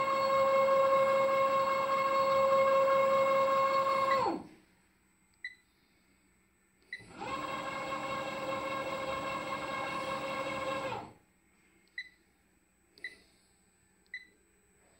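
Welding positioner's turntable drive motor whining steadily as the chuck rotates; it stops about four seconds in. After a pause it runs again, quieter, for about four seconds while the table returns to zero. Short beeps come from the touchscreen controller as keys are pressed.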